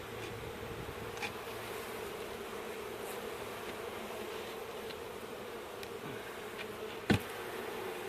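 Honeybee colony buzzing steadily in a nest box, a constant mid-pitched hum. A sharp knock sounds about seven seconds in, with a few faint ticks earlier.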